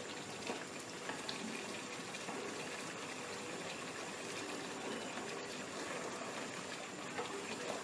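Goat meat in spice paste sizzling and bubbling steadily in a non-stick pan as it is fried down, with a wooden spatula stirring it and giving a few light scrapes and taps. The oil is separating from the masala, the sign that it is well fried.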